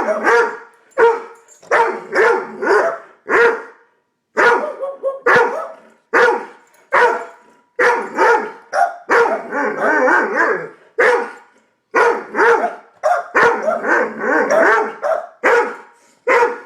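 A Doberman and a Boston Terrier barking repeatedly, roughly one bark a second, with denser stretches of barking around the middle and again near the end.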